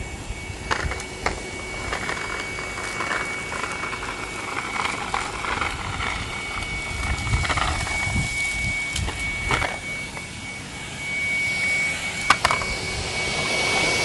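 Numatic Henry-type tub vacuum cleaner running steadily with a high motor whine, its floor nozzle pushed over a gravelly dirt path, with occasional sharp clicks of grit rattling into the hose.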